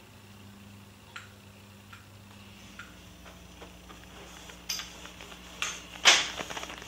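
Scattered light clicks and taps over a faint low hum, growing more frequent and louder near the end, with one sharp knock about six seconds in.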